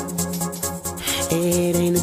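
Music with a steady beat and held notes over it.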